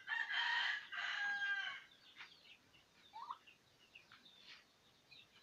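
A rooster crowing once, one loud call of about two seconds with a short break partway through, followed by faint short calls from the poultry.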